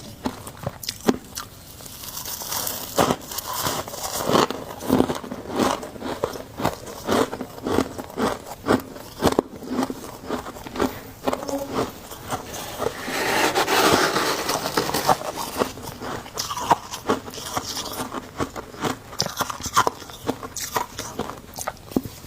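Close-up crunching of freezer frost chunks being bitten and chewed, in sharp crunches about one or two a second, with a longer, louder run of crunching about halfway through.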